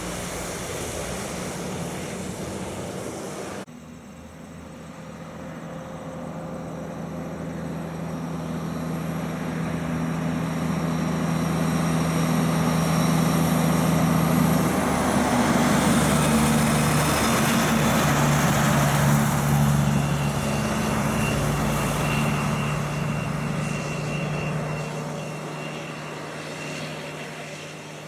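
A heavy truck's diesel engine fades away. After a sudden cut, a Hino truck and trailer approaches with a steady low engine drone and tyre noise on the wet road. The sound is loudest as it passes, about halfway through, and the engine note shifts once before it fades away.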